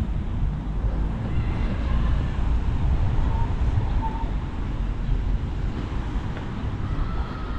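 Wind blowing on the microphone of a handheld camera, a heavy, unsteady low rumble, over faint street traffic.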